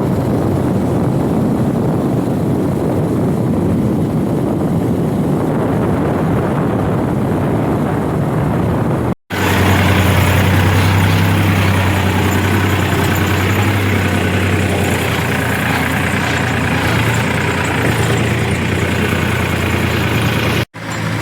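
Heavy diesel engine of earth-moving or farm machinery running. At first it sounds rough and noisy; then, after a sudden cut about nine seconds in, it settles into a steady low hum at idle.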